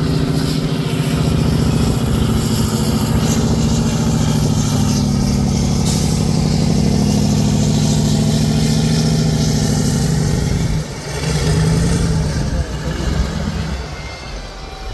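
Off-road trial truck's diesel engine working hard at steady high revs as the truck climbs a steep bank. About ten seconds in the revs drop, pick up briefly, then fall away near the end.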